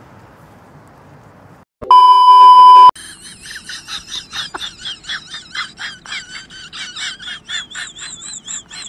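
A loud, steady censor bleep tone lasting about a second, starting about two seconds in. It is followed by a fast, rhythmic, high-pitched warbling sound.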